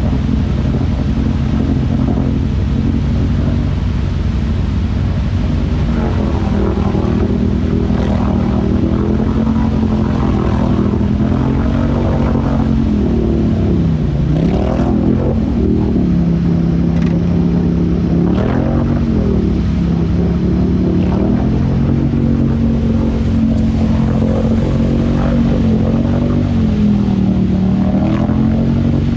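ATV engine held at high revs while the quad is stuck in deep mud with its wheels spinning; the revs dip and climb again several times.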